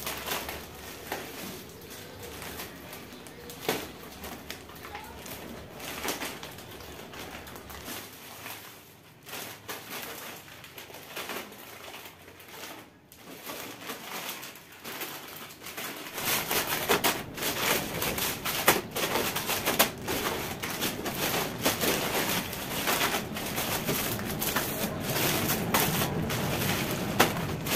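Plastic grocery bag rustling and crinkling as packaged groceries are pulled out and set down on a stone countertop, with short knocks and crackles as the packs land. It gets busier and louder about halfway through.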